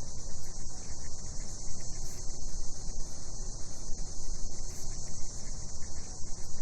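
Night chorus of cicadas, a steady high-pitched buzzing drone that runs on without a break, over a low rumble.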